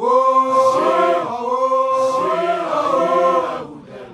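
A group of voices singing a chant, holding one long note for about two seconds and then moving through rising-and-falling phrases that fade out near the end.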